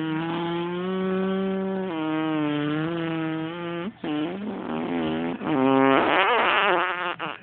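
A person making a fart noise with the lips: one long buzz held at a nearly steady pitch for about four seconds, then after a brief break a run of shorter buzzes that wobble and slide in pitch.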